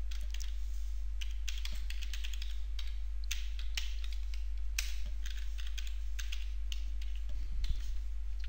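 Typing on a computer keyboard: irregular keystrokes, a few a second with short pauses between runs, over a steady low hum.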